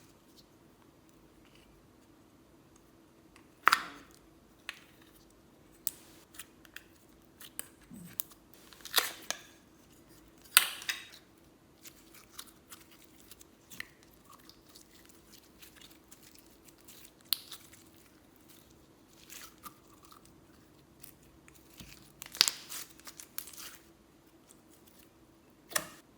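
Slime being worked by hand, making scattered sticky pops and crackles. A few are much louder, where air pockets in the slime burst.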